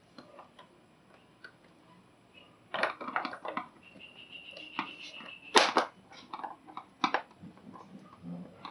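Scattered clicks, knocks and crackles of hands and tools handling electrical wiring parts, with a steady high squeak lasting under two seconds in the middle and the loudest knock a little past the middle.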